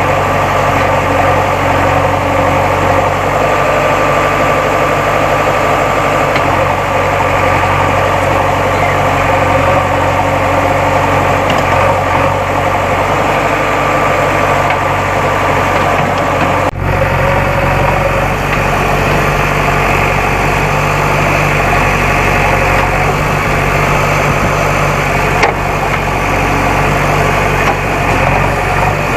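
Diesel engine of a JCB backhoe loader running steadily at a working idle. About two-thirds of the way in the sound changes abruptly and the low rumble becomes heavier.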